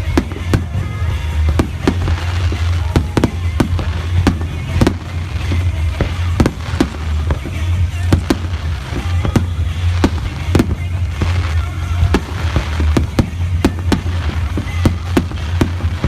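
Fireworks display: an irregular rapid series of sharp bursts and crackling pops, several a second, with music playing underneath.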